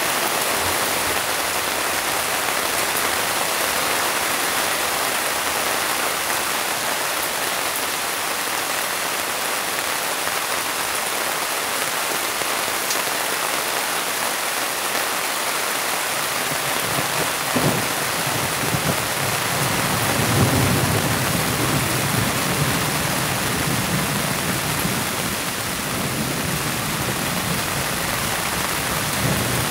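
Heavy rain pouring steadily, an even hiss. About halfway through, a low rumble of thunder comes in underneath and goes on to the end, with a single short knock just as it begins.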